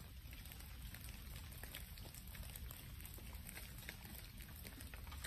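Open wood fire of brushwood and branches crackling, with irregular sharp pops over a steady low rumble.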